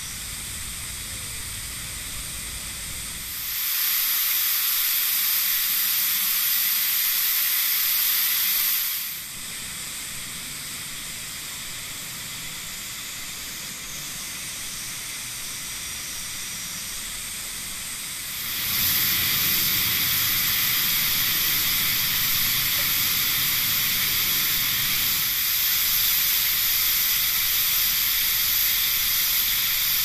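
Steady hiss, with no clear single source. It steps up louder and brighter about three seconds in, drops back near nine seconds, and rises again about eighteen seconds in.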